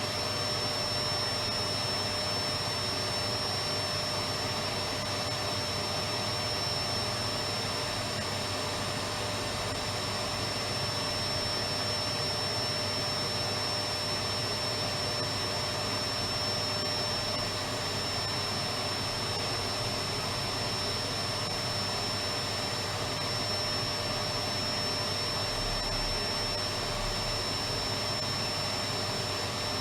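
Electric vacuum cleaner running steadily: an even whooshing hum with a faint high whine, unchanging throughout.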